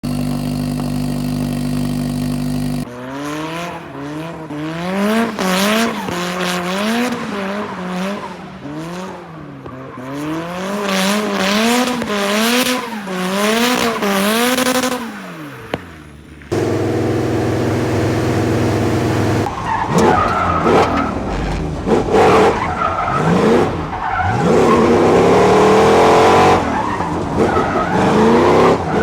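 A turbocharged boxer four-cylinder and a naturally aspirated V8 revved in turn for a sound comparison. The first engine holds a steady note, then is blipped up and down repeatedly in smooth rises and falls. After a cut at about 16 seconds the second engine idles briefly, then is revved in quicker, rougher swings.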